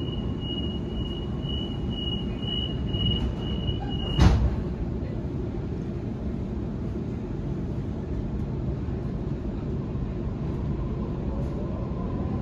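Waratah electric train's door-closing warning beeping, about two beeps a second, then the doors shutting with a sharp thud about four seconds in. After that the carriage hums with a steady low rumble, and near the end a faint rising whine sets in as the traction motors start the train moving.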